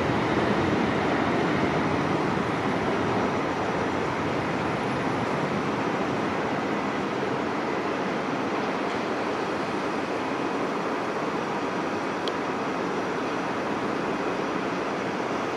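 Boeing 767-300ER's twin jet engines at takeoff thrust during the takeoff roll and climb-out: a steady, broad roar that eases slightly over the first few seconds and then holds.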